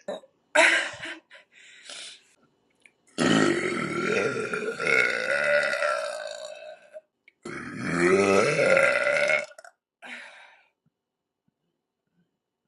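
A woman burping: a short burp about half a second in, then two long, drawn-out burps, the first lasting about four seconds and the second about two.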